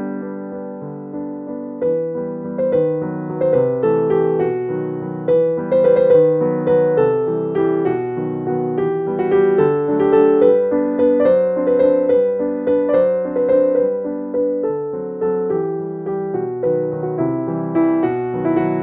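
Background piano music: a gentle, steady stream of notes.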